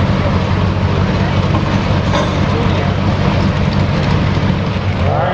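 Pulling pickup truck's engine running steadily at rest after its pull, a deep even rumble with no revving.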